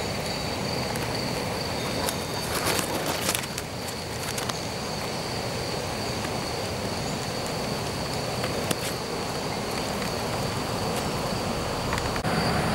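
European field crickets singing: a steady high-pitched chirring over a background hiss, with a few soft clicks between about two and four seconds in. Near the end the background turns louder and lower.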